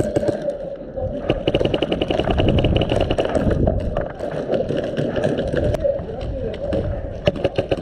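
Airsoft gun firing a rapid full-auto burst of about two seconds, starting about a second in, with a few scattered single shots or BB hits near the end.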